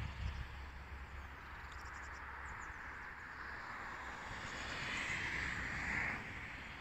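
Distant DB class 218 diesel-hydraulic locomotive approaching along the line, a faint, even rumble and hiss that swells a little near the end. A few short bird chirps come about two seconds in.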